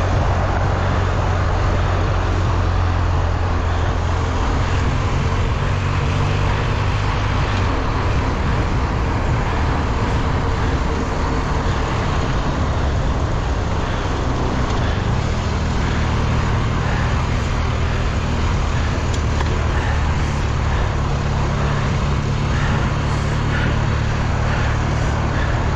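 Steady, loud rush and rumble of wind and riding noise on the microphone of a camera carried on a mountain bike ride.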